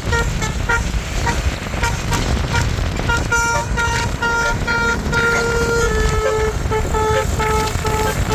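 Bus's Basuri 'telolet' multi-tone air horn playing a tune: a quick string of short toots at several pitches, with one longer held note about five seconds in, over a low rumble.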